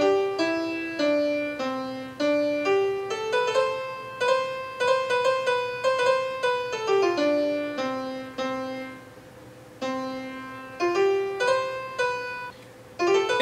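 Piano 1 sound of a Roland SC-55 MIDI sound module, triggered by an Altura MIDI theremin: a string of single piano notes that step down and up in pitch as a hand moves over the theremin's sonar sensor. There are two short pauses, one about two-thirds through and one near the end.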